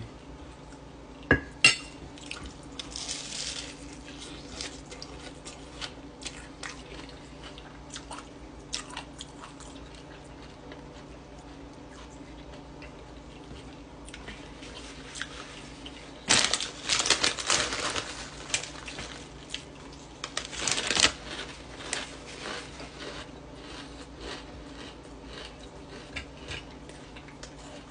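Close-up eating sounds: a metal spoon clinks sharply against a ceramic plate twice about a second in. Later come crunchy bites and chewing of a sandwich made with fried hash-brown patties, loudest in two spells a little past the middle.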